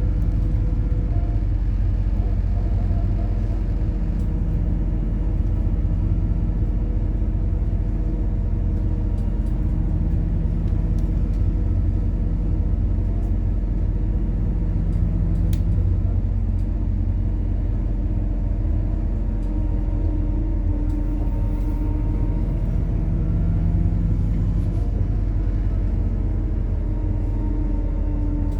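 MAZ-103.946 city bus with a methane-fuelled engine running, heard from inside the bus: a steady low rumble of engine and road, with engine tones that slowly shift in pitch.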